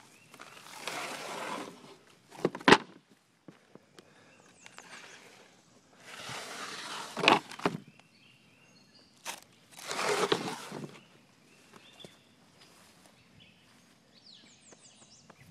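Footsteps scuffing over a pile of old boards: three spells of scraping, each with a sharp knock, with faint bird chirps behind.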